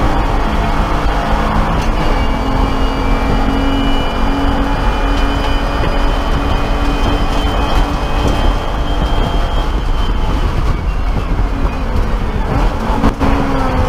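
BMW E30 race car's inline-six heard from inside the stripped cockpit, running at high revs down a straight with a high whine over it. About ten seconds in the driver lifts off and the engine note drops as the car brakes for the next corner.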